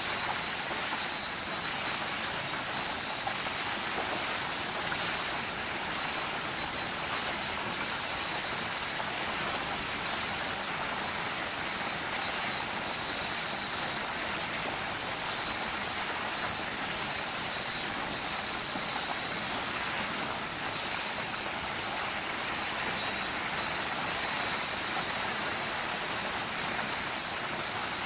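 Summer cicada chorus: a steady, high-pitched buzz, with a second insect call repeating in short pulsing phrases over it.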